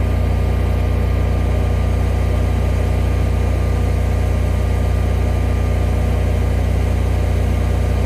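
A competing 20 kW-class residential standby generator running steadily under load at 3600 RPM: a constant, even engine drone with a strong low hum and no change in speed.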